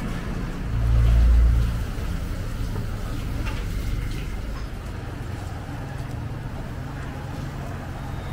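Low engine rumble of nearby road traffic, swelling a second in as a vehicle passes, then holding steady, with a few faint clicks.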